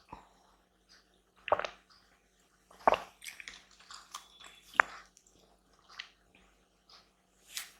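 Close-miked wet chewing and mouth sounds of a person eating, in a handful of separate bites with a sharp click about five seconds in.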